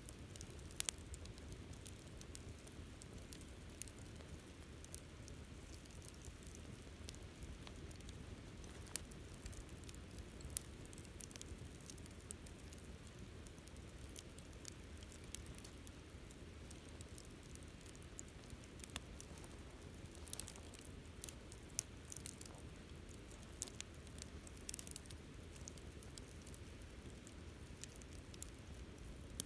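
Wood campfire burning: a soft steady rumble with scattered sharp crackles and pops, which come thicker and louder about twenty seconds in.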